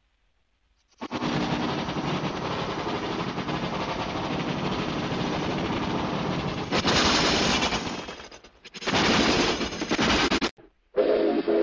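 Animated steam locomotive's sound effect: a fast, rattling run of chuffs that starts about a second in, breaks off briefly twice, and gives way to a steam whistle near the end.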